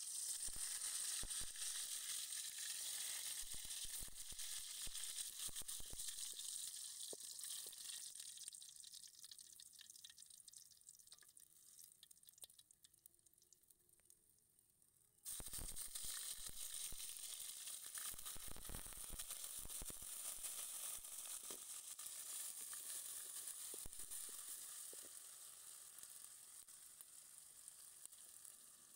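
Whole spices (bay leaves and cardamom) sizzling in hot oil in an aluminium pan. The sizzle starts suddenly, dies down over about fourteen seconds, comes back loud about halfway through, and slowly fades again.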